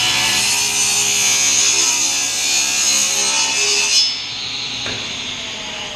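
SawStop table saw ripping along the edge of a board: the spinning blade cuts through the wood with loud, steady high-pitched noise over the motor's hum, the cut ending about four seconds in. After that the blade runs free and the motor hum drops away as the saw coasts down.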